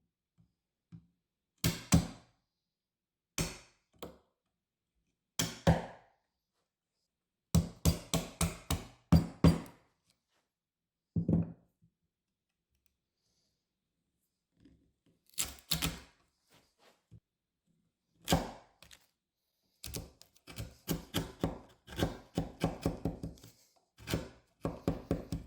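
Chisel knocking out the waste of a lap joint in pine, a series of sharp knocks and thunks in groups with short pauses between. The strikes come in quick runs around the middle and again through the last few seconds.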